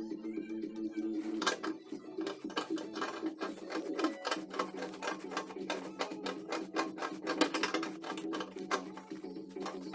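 Rapid, irregular metallic clicking and scraping of pliers working a threaded condensate drain valve fitting on the bottom of a compressor air receiver as it is tightened, over a steady low hum.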